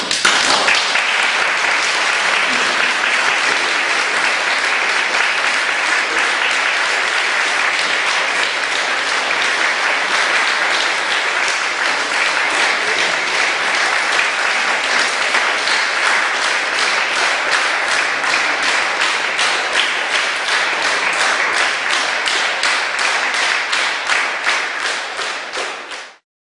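Audience applauding, starting at once and holding steady, with individual claps standing out more evenly toward the end, then cutting off suddenly.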